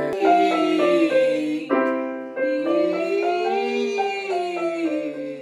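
Digital piano being played: chords and a melody of held notes, with new chords struck every second or so.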